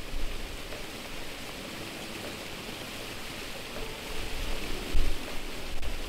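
Small waterfall pouring over a rock ledge into a shallow creek: a steady rush of falling water. Wind buffets the microphone in low gusts, the strongest about five seconds in.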